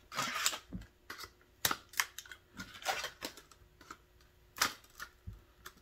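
Titan 7.5-inch multi-purpose shears with 420J2 stainless steel blades being worked, an irregular run of about a dozen sharp snips and clicks as the blades close and cut.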